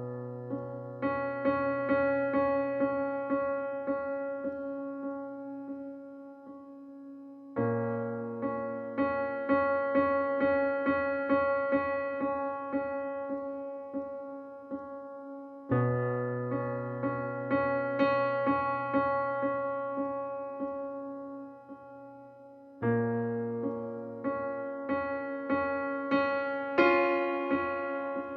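Background music: a keyboard playing repeated notes over held low bass notes, beginning a new phrase about every eight seconds.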